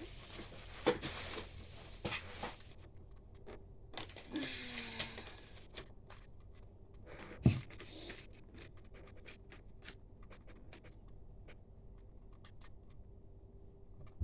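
Rustling, scratching and small clicks of things being handled up close, in two bursts over the first five seconds, with one knock about seven and a half seconds in and a few faint ticks after.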